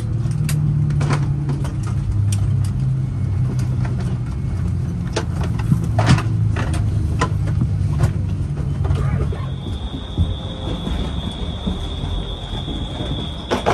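Steady low hum inside a parked Airbus A330's cabin at the gate, with scattered short clicks and knocks. About two-thirds of the way in, a steady high-pitched tone starts and keeps going.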